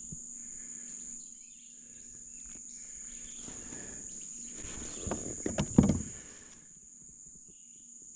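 Insects droning steadily in one high pitch, with a short cluster of loud knocks and splashy rustling about five seconds in.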